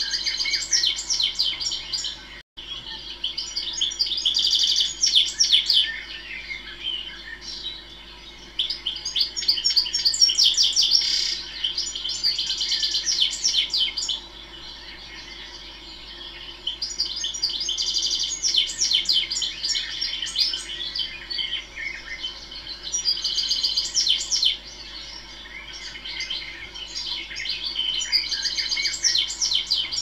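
European goldfinch singing: a rambling, tinkling twitter of rapid high notes, delivered in phrases a few seconds long with short pauses between.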